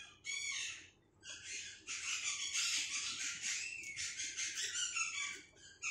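Pet parrot squawking: a short call at the start, then a long run of harsh, rasping squawks from about a second in until just before the end.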